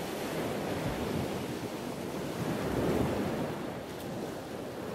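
Sea water washing and surging in slow swells, rising to a louder surge about three seconds in.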